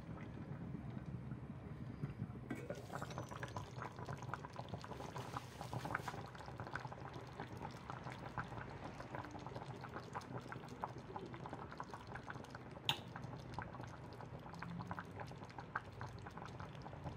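Chicken breast and mushrooms in a cream sauce simmering in a stainless steel pan with the lid off, bubbling and popping steadily, with one sharp click near the end.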